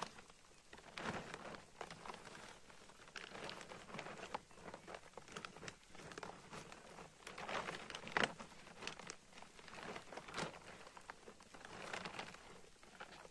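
Black plastic tarp sheeting crinkling and rustling in irregular bursts as it is moved.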